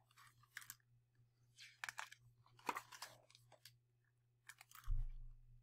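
Faint rustling and crinkling of a picture book's paper pages being handled and turned, in several short bursts, with a soft low thump near the end.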